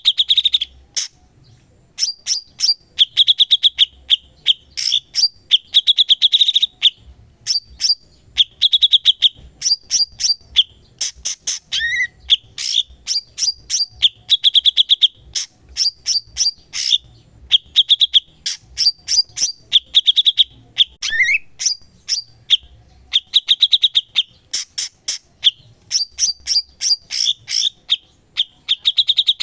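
Cucak cungkok singing continuously and vigorously (gacor): fast strings of sharp clicking notes broken by repeated short buzzing trills, with brief pauses between phrases.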